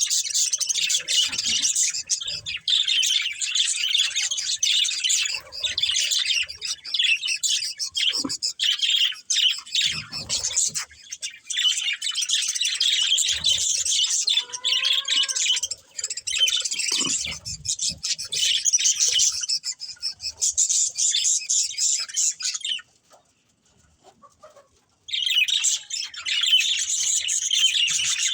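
Budgerigars chirping and chattering in fast, dense warbles. The chatter breaks off for about two seconds near the end, then starts again.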